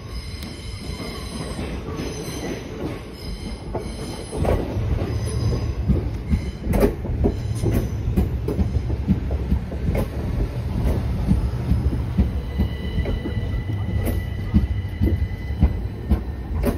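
Southeastern electric multiple unit running slowly along the platform, its low rumble rising about four seconds in, with repeated wheel clicks over rail joints. A high squeal from the wheels comes in near the end.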